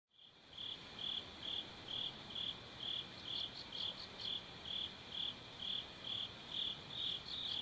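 An insect chirping in a steady rhythm, about two short chirps a second, over a low hiss, beginning just as the music stops.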